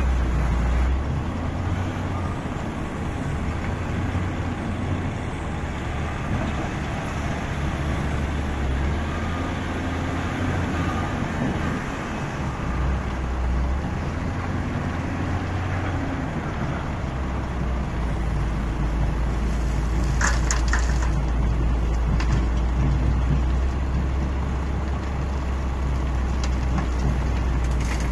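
Cat 966 wheel loader's diesel engine working, its low rumble rising and falling as the machine drives back and forth and lifts its bucket. Loose stone and earth spill from the bucket into a steel truck bed.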